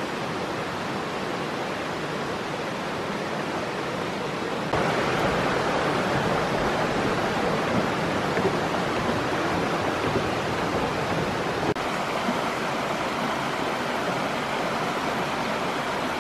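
Mountain creek rushing over rocks, a steady wash of water that gets louder about five seconds in and eases back a little near twelve seconds.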